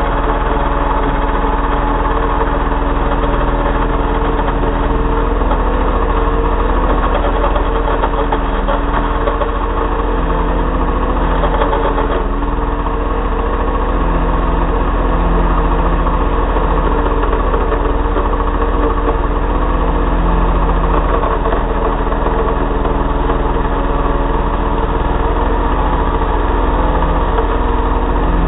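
Two-stroke Timberpro petrol chainsaw running steadily, with no change in pitch, as its chain cuts slowly down through a motorcycle helmet.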